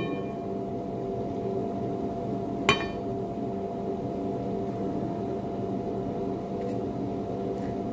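Steady hum of kitchen ventilation machinery. A single short, ringing clink sounds about two and a half seconds in.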